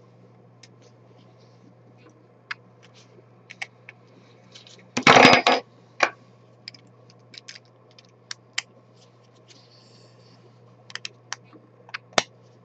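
Scattered light clicks and scrapes of hard 3D-printed plastic parts being handled and trimmed with a blade, with one louder clatter lasting about half a second a little after five seconds in.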